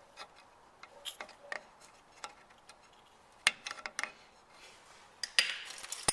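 Scattered small metallic clicks and taps of metal brake parts being handled and set in place on a drum brake, with a sharper knock about three and a half seconds in and a brief rattle near the end.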